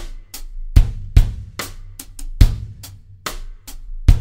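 Acoustic drum kit playing a steady rock groove with bass drum, snare and hi-hat. Extra hi-hat notes are packed into one beat of the bar as a small fill-in variation on the groove.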